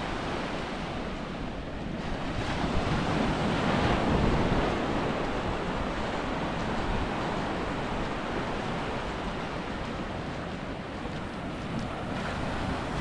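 Small surf breaking and washing up onto a sandy beach in a steady rush, with wind buffeting the microphone.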